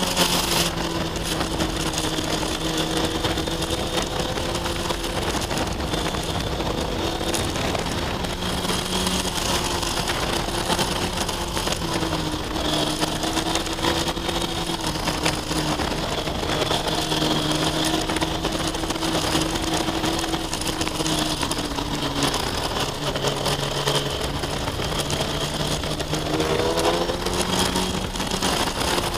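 Kawasaki ZX-6R 636 sportbike's inline-four engine running under way at fairly steady revs, its pitch shifting slightly and rising about three seconds before the end.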